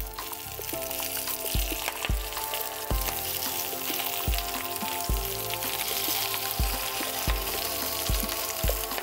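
Leafy vegetable scraps sizzling and frying in smoking-hot vegetable oil in a cast-iron pan, the first frying step of seasoning the new pan. The sizzling builds up in the first second as the scraps go in.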